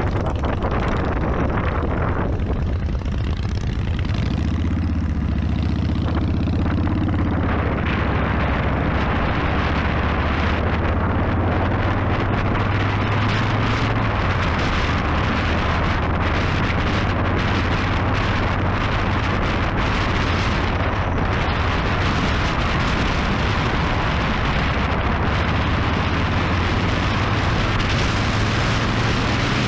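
Motorcycle engine running at road speed, with wind rushing over the microphone. About four seconds in the engine note strengthens, then holds steady.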